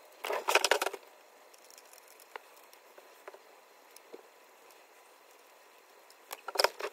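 Scissors snipping through a cracked cell-phone screen protector: a crackly burst of quick cuts in the first second, then a few faint ticks and another short clatter of clicks near the end.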